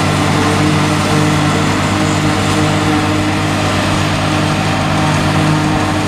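Tractor engine running steadily under load, powering a New Holland FP230 pull-type forage harvester as it picks up and chops windrowed hay.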